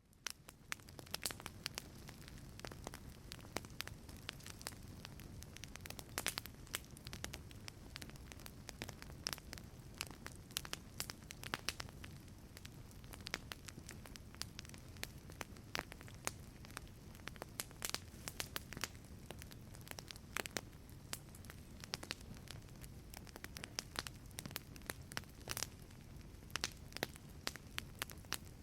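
Wood fire crackling in a fireplace: frequent sharp, irregular pops and snaps over a soft low rumble of the flames. It fades in over the first second.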